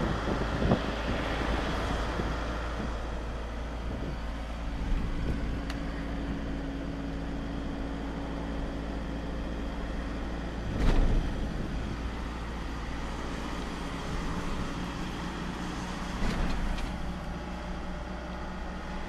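Vehicle driving along a road, heard from inside the cab: a steady engine and road rumble, with one louder thump about eleven seconds in.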